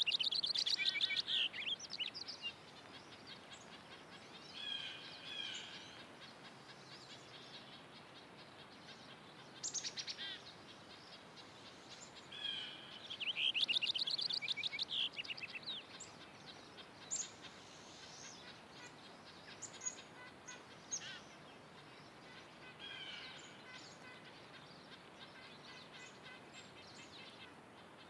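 Male Cassin's finch singing: a rich warbling song given in several bouts of about one to three seconds, the longest near the start and about halfway through, then shorter single notes toward the end.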